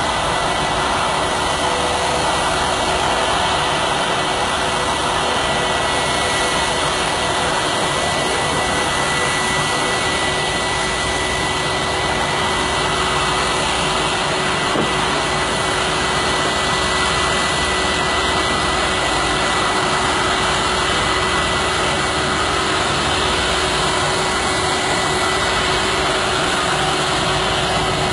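Jet airliner engines: a loud, steady rush with a thin steady whine over it, unchanging throughout.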